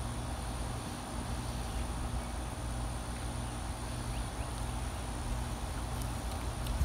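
Steady outdoor background noise: a continuous low rumble with a constant faint high whine over it, and a few faint clicks about six seconds in.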